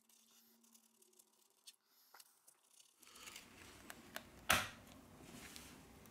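Adhesive under a Redmi Note 8's back cover being separated with a thin plastic card: a few faint ticks, then from about halfway a soft crackling tear with several clicks and one sharp snap a little past the middle as the cover lifts free.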